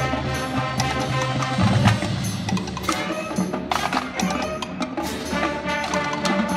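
High school marching band playing: held wind chords over front-ensemble mallet and drum percussion, with frequent sharp percussive clicks.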